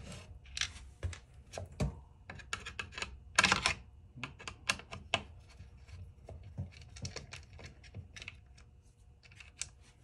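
Irregular small clicks and scrapes of a screwdriver turning out screws from a plastic space-heater base, with the power cord rubbing as it is handled; one louder scrape about three and a half seconds in.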